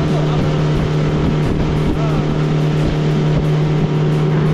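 Speedboat engine running steadily at speed, a constant drone over the rush of water and wind as the hull planes across the lake.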